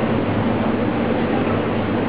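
Induction melting furnace running: a steady mechanical drone and rush of noise with a low electrical hum underneath, unchanging throughout.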